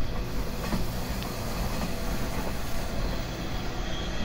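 JNR 185 series electric multiple unit running at speed on the line, heard from on board: a steady running rumble with a few faint clicks.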